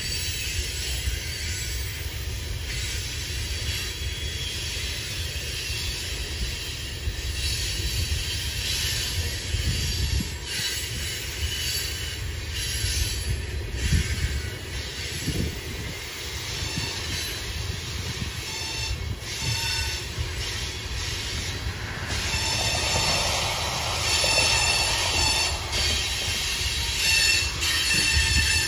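Loaded coal cars of a long freight train rolling past, a steady low rumble of wheels on rail with high-pitched steel wheel squeal. The squeal grows louder near the end.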